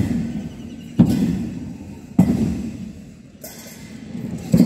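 Bass drum beating a slow, steady time, a deep stroke about every 1.2 seconds with a short ring after each; the third stroke is softer.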